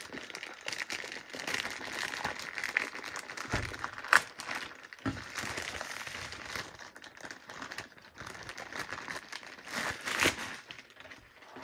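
Clear plastic sleeve crinkling and crackling as it is handled and pulled off a rolled canvas, with one sharp crack about four seconds in.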